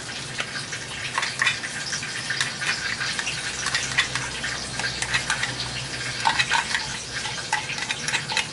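Thin breaded chicken fillets frying in hot oil in a pan: a steady sizzle with many small crackles. A fork scrapes tuna out of a tin near the start.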